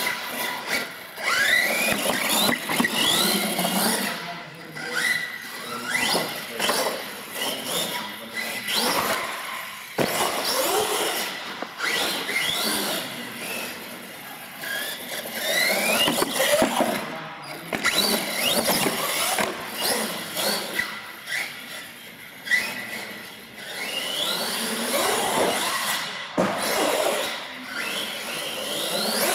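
R/C monster truck driving hard on a smooth concrete floor: its electric motor whines, rising in pitch again and again with each burst of throttle, with tyres squealing on the concrete.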